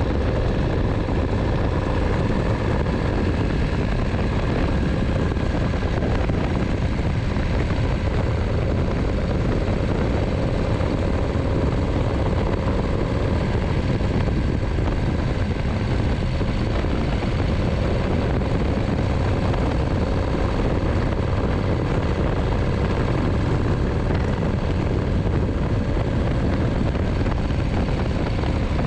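1951 Harley-Davidson Pan-Shovel V-twin running steadily at cruising speed, with wind and road noise over it.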